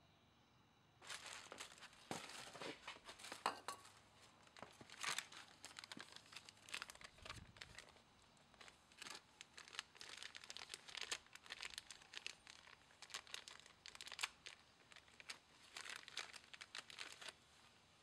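Plastic bag crinkling and rustling as it is handled, a long run of irregular crackles that starts about a second in and stops about a second before the end.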